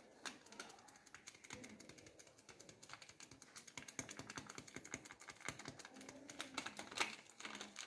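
A foil spice packet crinkling as it is shaken and tapped, with masala powder sprinkled over flour-coated chicken pieces on a plate. It is a faint, irregular run of small clicks and rustles that gets busier about halfway through, with a sharper click near the end.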